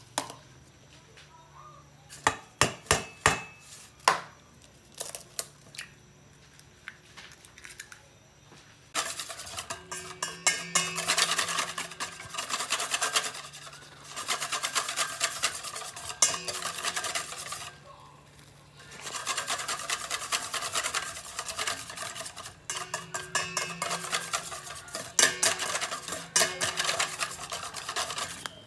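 Wire whisk beating a flour batter in a stainless steel bowl: fast metallic scraping and clinking in long runs, with two short breaks. A few sharp knocks against the bowl come a couple of seconds in, before the whisking starts.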